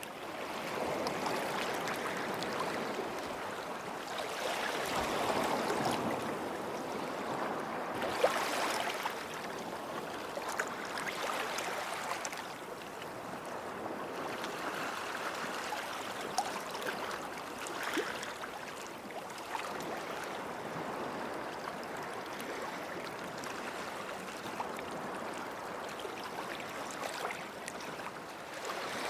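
Small waves washing in and out at the water's edge of a sandy beach, swelling and easing every few seconds, with a few faint clicks in the wash.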